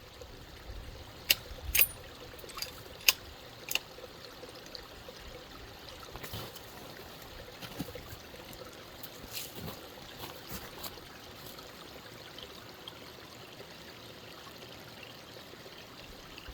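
Water trickling and running steadily through a beaver dam that has been breached. Four sharp knocks or clicks cut through it in the first four seconds.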